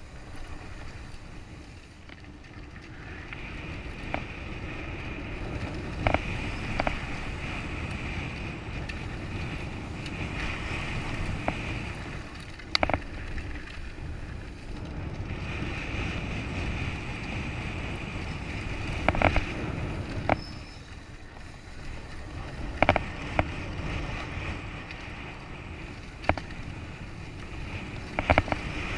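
Mountain bike descending a dirt downhill trail: a steady rush of wind and tyre noise, broken by sharp clattering knocks from the bike jolting over bumps, several times.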